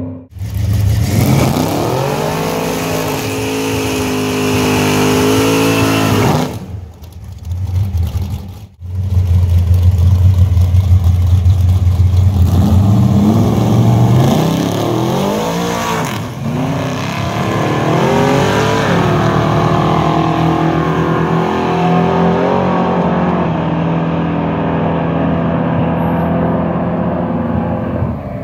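Drag race car engines revving and accelerating hard, their pitch rising and falling several times, with abrupt breaks between short stretches.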